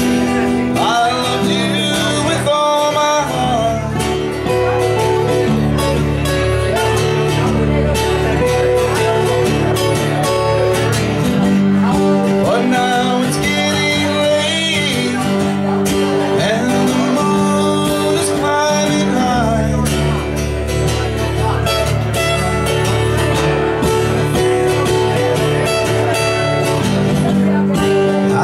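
Live acoustic guitar music in a country/bluegrass style, with a man singing over the strummed and picked guitar.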